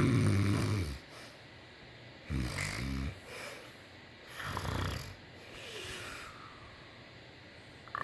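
A person snoring in their sleep: three loud snores about two seconds apart, the first the loudest, with softer breaths between them.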